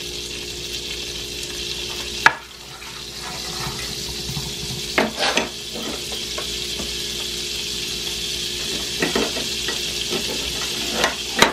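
Butter sizzling as it melts in a hot frying pan, a steady hiss, with a few sharp knocks against the pan.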